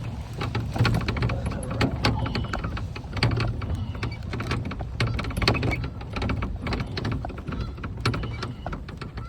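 Golf cart driving over rough farm ground: a steady low hum with many rattles and crackles throughout.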